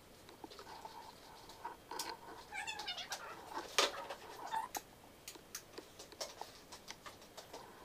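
An animal's short, wavering, high cries, heard between about two and five seconds in, among scattered light clicks.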